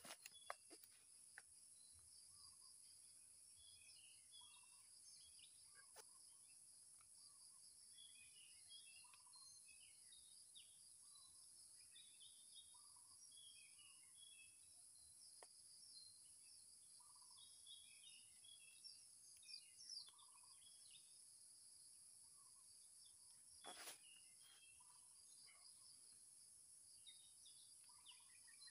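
Faint forest ambience: a steady high-pitched insect drone, with short bird chirps repeating every second or two and a couple of soft handling clicks.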